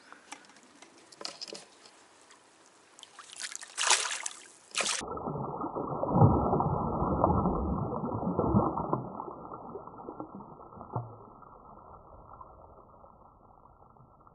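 Water splashing and sloshing as a carp thrashes in a landing net held in shallow pond water while it is being released. A few sharp splashes and knocks come in the first few seconds, then a longer, duller stretch of sloshing, loudest in the middle, that fades away.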